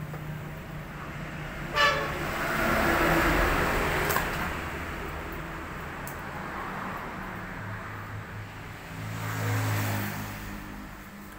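Background road traffic: vehicles passing, swelling and fading twice, with a short horn toot about two seconds in.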